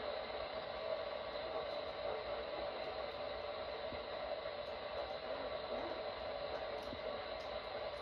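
Steady radio static and hiss from a weather radio receiver carrying no broadcast audio.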